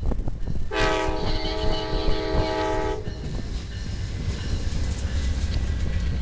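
Amtrak P42 diesel locomotive's air horn sounding one long chord of about two seconds. The horn is followed by the low rumble of the train's bi-level Superliner cars rolling past close by, with wind on the microphone.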